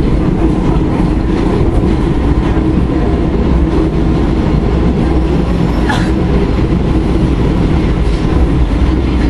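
London Underground train running through a tunnel, heard from inside the carriage: a loud, steady rumbling running noise.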